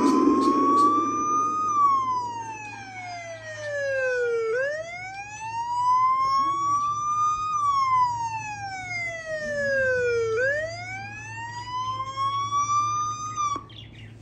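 Police siren wailing, its pitch rising and falling slowly about every three seconds, then cutting off abruptly near the end.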